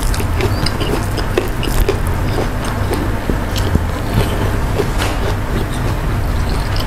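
Close-miked chewing and mouth sounds of a person eating a meal by hand: scattered small wet clicks and crunches, over a steady low hum.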